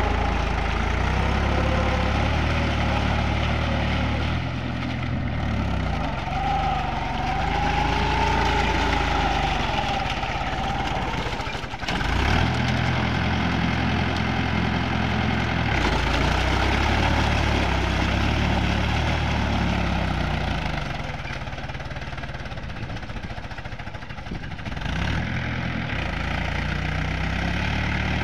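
Mahindra 475 tractor's diesel engine running under load as it drags a cultivator through deep paddy mud, its pitch rising and falling several times with engine speed.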